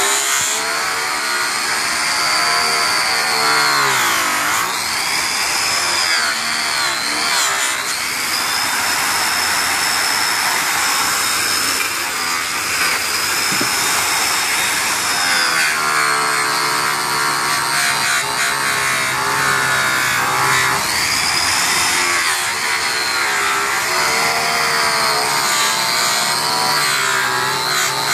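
A 15-amp, 6,000 RPM electric rotary polisher spinning a cloth buffing wheel against an aluminum wheel. It runs loud and continuously, and its high whine dips in pitch several times and climbs back.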